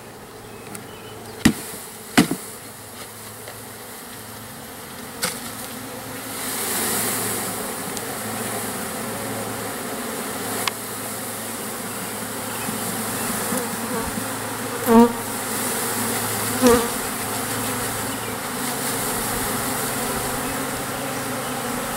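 A mass of honey bees buzzing as a package of bees is shaken out of its plastic cage into a hive box. Two sharp knocks come about a second and a half in, the buzzing swells from about six seconds, and two brief louder buzzes come past near the end.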